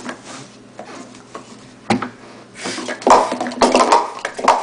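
Plastic sport-stacking cups being stacked at speed in a 3-6-3: a few light clicks, a sharp tap about two seconds in, then a fast run of clattering and clacking as the cups are upstacked and downstacked.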